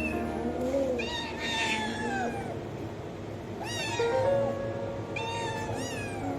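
Cats meowing several times, each meow a short call that rises and falls, over background music.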